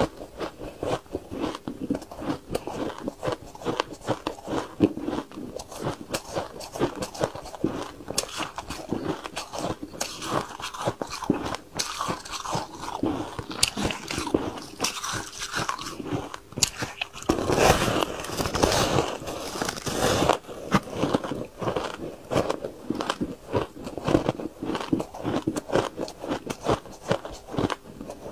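Close-miked crunching and chewing of soft white ice in the mouth: a fast run of crisp crackles and crunches, with a louder, denser stretch of crunching lasting about three seconds past the middle.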